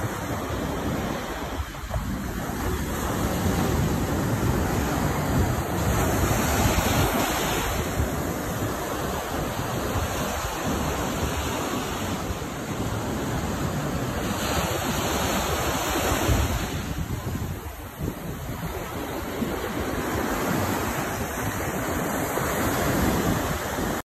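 Atlantic surf breaking and washing up a sandy beach, rising and falling every few seconds, with wind rumbling on the microphone.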